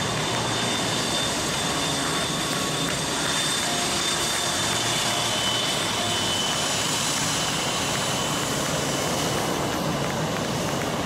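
Jet aircraft engines running, heard as a steady, unbroken noise with a faint high whine.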